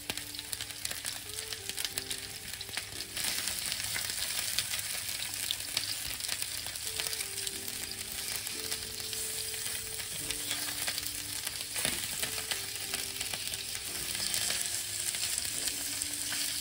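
Chicken drumsticks sizzling in hot oil in a nonstick frying pan, the sizzle getting louder about three seconds in, with the light scrape of a fork as the pieces are turned.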